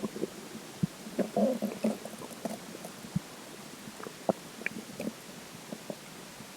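A human stomach gurgling after drinking water: a burst of gurgles a little over a second in, then irregular single pops and bubbling sounds.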